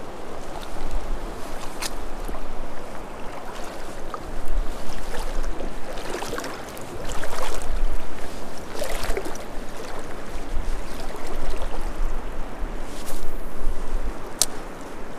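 River water rushing over riffles, with gusts of wind buffeting the microphone in uneven low surges. There are a few sharp clicks, about two seconds in and near the end.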